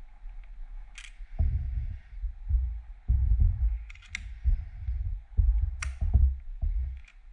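Work and handling noise close to the microphone: a series of low thuds and rumbles in uneven bursts, with four sharp clicks spread through.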